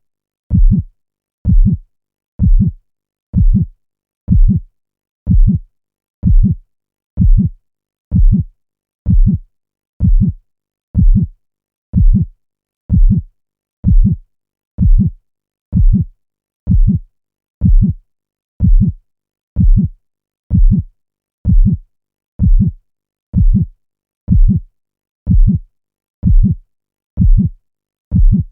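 Heartbeat sound effect: a steady loop of deep lub-dub thumps, about one beat a second, with silence between beats.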